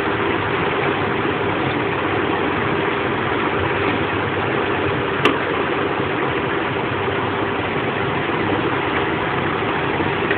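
Steady background noise with a faint, even hum, and a single sharp click about five seconds in.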